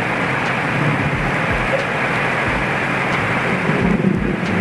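Mini multi-function rice milling machine (820 Pro huller) running with unhulled paddy going through it: a loud, steady rushing noise.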